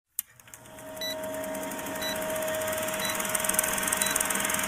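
Old-film countdown leader sound effect: a film projector's fast rattle and crackling hiss fading in, over a steady hum, with a short high beep about once a second as the numbers count down.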